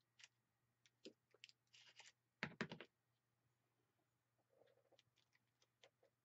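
Quiet paper handling: faint rustles and small clicks as a thin paper strip is picked up and laid and pressed onto a journal page, with a short cluster of louder taps about two and a half seconds in.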